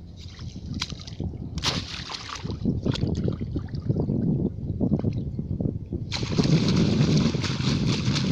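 Hands sloshing in shallow muddy water, reaching into a bamboo plunge-basket fish trap to feel for fish. About six seconds in it turns to steady, heavier splashing as water is thrown about with both hands.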